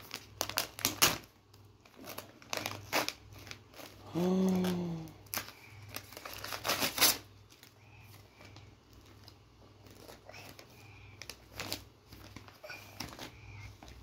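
Wrapping paper crinkling and tearing in quick irregular rustles and rips as a small child unwraps a present by hand. A short vocal sound comes about four seconds in.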